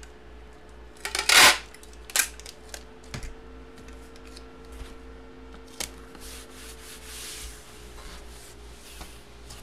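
Large cardboard sheets sliding and rubbing against each other as they are handled, with a loud scraping slide about a second in and a shorter one about a second later, then softer rustling and light taps.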